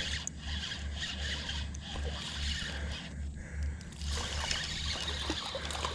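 Light water splashing and rustling as a hooked freshwater drum is fought in on a fishing rod, over an uneven low rumble.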